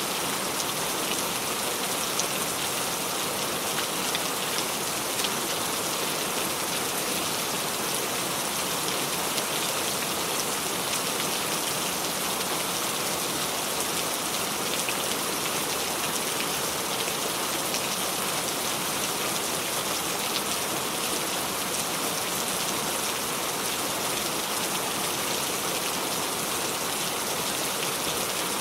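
Steady, even rain falling on a surface, a dense patter of many small drops with no let-up.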